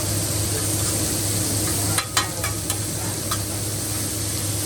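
Fried rice and vegetables sizzling on a hot hibachi griddle. A few sharp metal clicks of the chef's spatula come through, a quick cluster about two seconds in.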